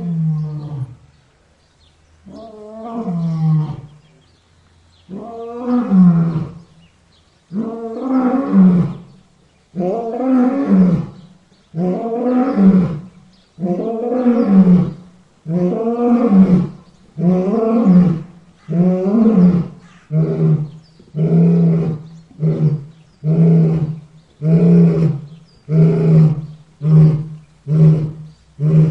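A lion roaring in a long bout: deep roars about two seconds apart, growing louder through the first half, then giving way to shorter grunts coming faster, about one a second, toward the end.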